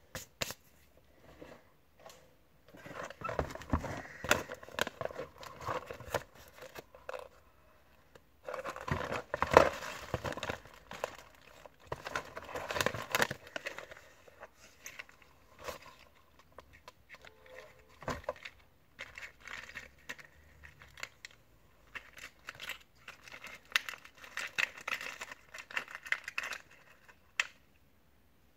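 Plastic packaging being handled and opened by hand: bursts of crinkling and rustling mixed with small clicks of hard plastic, in three main stretches with quieter pauses between.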